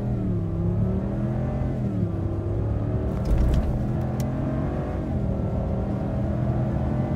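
2019 Ram 1500's 5.7-litre Hemi V8 at full throttle, heard from inside the cab, accelerating hard from about 28 mph to past 60 mph. Its pitch climbs, drops at an automatic upshift about two seconds in, climbs again, and drops at another upshift about five seconds in.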